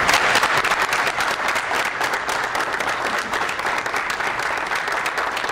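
A small group of students applauding, a steady run of hand clapping that eases slightly near the end.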